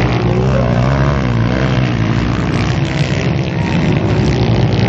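Motocross motorcycle engines revving hard, their pitch rising and falling as the bikes race around the track, over a steady low drone.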